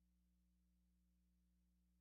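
Near silence, with only a faint, steady low hum.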